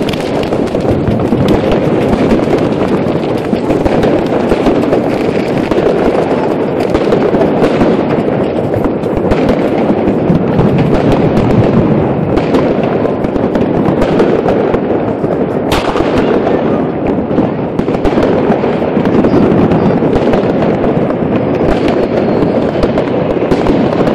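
Many consumer fireworks (rockets, firecrackers and fountains) going off at once: a dense, unbroken crackle of small bangs, with a sharper single bang about two-thirds of the way through.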